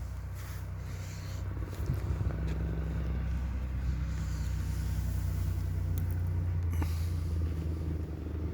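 An engine idling, a steady low hum that gets louder about a second and a half in and then holds steady.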